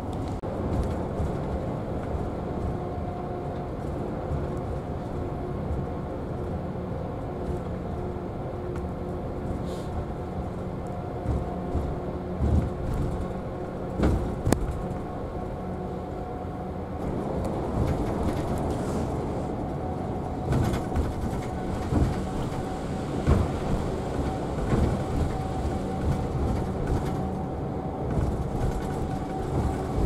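Route bus heard from inside the passenger cabin while driving: steady engine drone and road rumble with a faint hum. There are short knocks and rattles, more frequent and a little louder in the second half, and one sharp click about halfway through.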